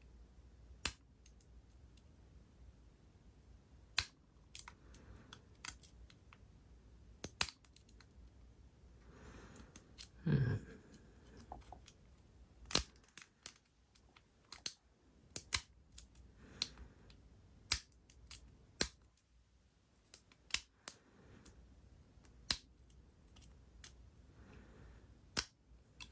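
Lock picks working inside a Yale padlock's pin tumbler cylinder: irregular sharp clicks and ticks as the pins are probed and set under tension. One louder, longer sound comes about ten seconds in.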